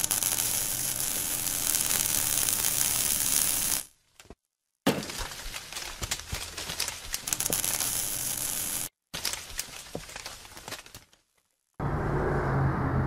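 Intro sound effects: a dense crackling hiss like burning, then a stretch of sharp crackles and glassy clinks and breaks that fade out. Near the end a steady low machine hum starts.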